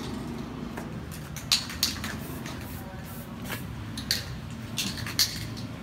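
Sharp metallic clicks and taps from spokes being worked loose on a bicycle wheel, about seven at irregular intervals, over a steady low background hum.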